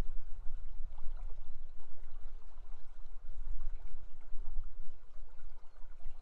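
Steady rush of river water flowing, with a deep low rumble underneath.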